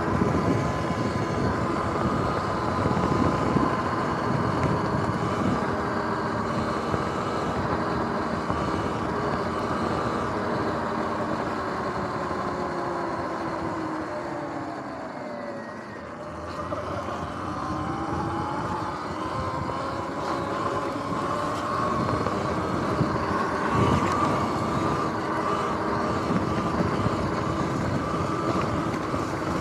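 Sur-Ron X electric dirt bike riding off-road: the electric motor whines over a rough rumble, the whine falling in pitch as the bike slows about halfway through, then rising again as it picks up speed.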